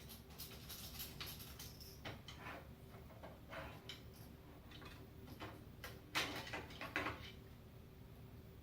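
Hands working inside a PC case: small plastic and metal clicks and scrapes while the old case fan is taken out, with two louder scraping sounds about six and seven seconds in.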